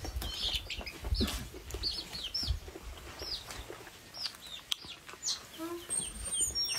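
Chickens clucking and cheeping nearby: a run of short, high chirps a fraction of a second apart.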